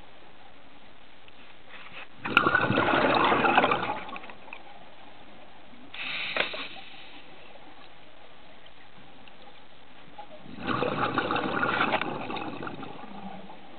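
Scuba diver's exhaled breath bubbling out of the regulator underwater: two loud gurgling bursts of about two seconds each, a couple of seconds in and again near the end, with a shorter burst of bubbling around the middle. A steady faint underwater hiss lies between them.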